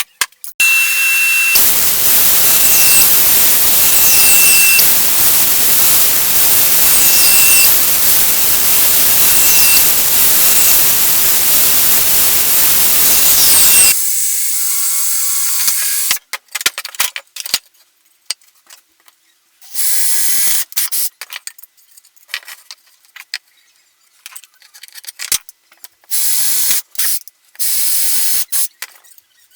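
A woodworking power tool running steadily with a loud hissing noise for about twelve seconds, cutting off suddenly. This is followed by a series of short, choppy bursts of tool noise with quiet gaps between them.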